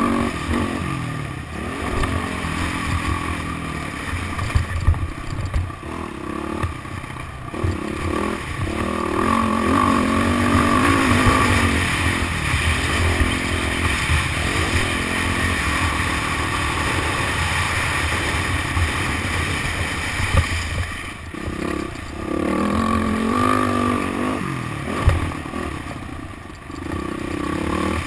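Motocross dirt bike engine revving up and down again and again as it is ridden around the track, with a few sharp knocks along the way.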